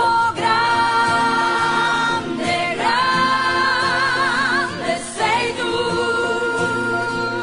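Italian worship song being sung over musical accompaniment, the voice holding three long notes in turn, with vibrato on the held notes.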